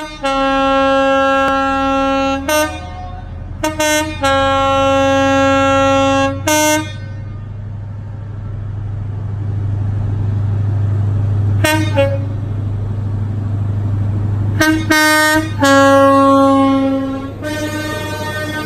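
Class 43 HST two-tone horn sounded repeatedly: three long blasts on the lower note, with short blips of the higher note between them. The power car's diesel engine hum grows louder from about halfway in as the train draws level and passes close by.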